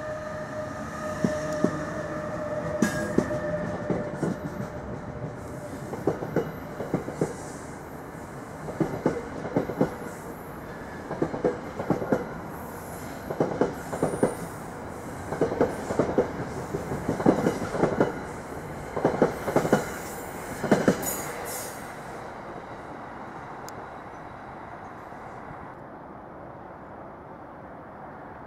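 NJ Transit ALP-46 electric locomotive and its coaches passing at speed. A steady whine is heard for the first few seconds. Then the wheels click over the rail joints in clusters every second or two, and the sound dies away about 22 seconds in.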